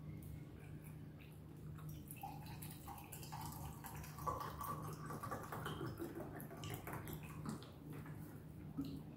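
Eating sounds of a man eating rice by hand: wet chewing and mouth noises, with fingers mixing and scraping rice and curry on a steel plate, over a steady low hum.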